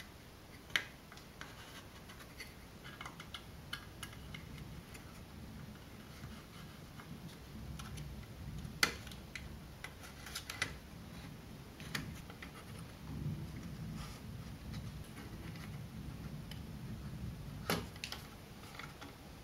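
Hands handling electrolytic capacitors inside an open amplifier chassis: light scraping and rubbing, with a handful of sharp clicks as parts are pushed into place on the circuit board.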